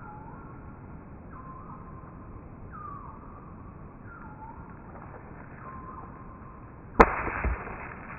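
An atlatl dart strikes a hanging bucket target about seven seconds in: a sharp hit, then a second knock about half a second later as the target swings. Before it, a bird repeats a short falling call about every second and a half.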